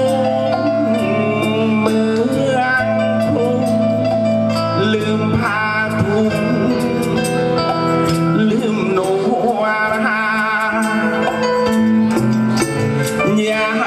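A man singing into a microphone over amplified band music with a steady beat, holding wavering notes around ten seconds in.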